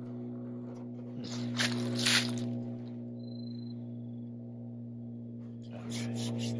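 Two short bursts of rustling and rubbing, about a second in and again near the end, from hands and jacket sleeves moving up to a heater's grille, over a steady low hum.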